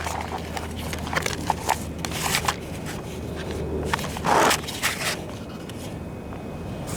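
Scattered clicks, knocks and scrapes of close-up handling, with a louder short rustling scrape about four seconds in, over a low steady hum.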